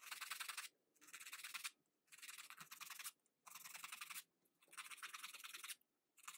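Faint, repeated rasping of a paper nail file drawn across the edge of a plastic nail tip, shaping it after cutting: about six strokes of under a second each, with short pauses between them.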